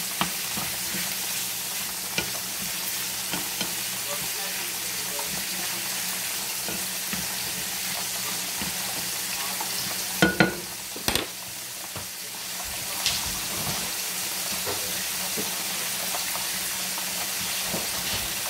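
Shrimp sizzling as they sauté in butter in a nonstick skillet, stirred with a wooden spoon: a steady frying hiss with small scrapes and clicks, and a few sharp knocks about ten seconds in.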